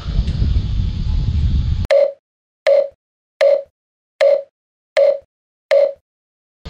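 Wind buffeting a body-worn camera's microphone for about two seconds, cut off abruptly. Then six short identical electronic beeps, evenly spaced about three-quarters of a second apart with dead silence between them: an edited-in sound effect.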